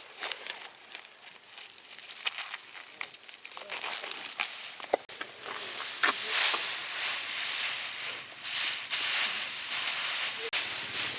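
Dry rice stalks and straw rustling and crackling as they are handled, at first as scattered crackles, then as a louder, denser rustle from about halfway through.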